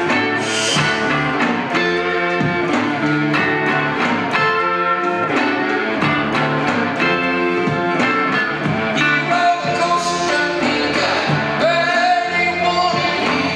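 A rock band playing live: two electric guitars and an electric bass over a steady beat.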